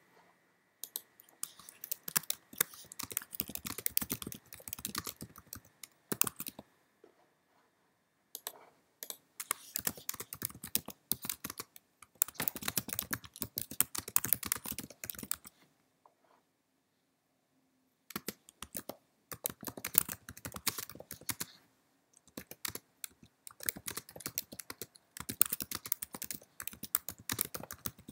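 Typing on a computer keyboard: quick runs of key clicks in bursts of a few seconds, broken by two pauses of about two seconds each.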